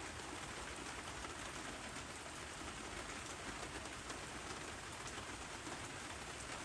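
Steady rain falling, with a fine patter of individual drops.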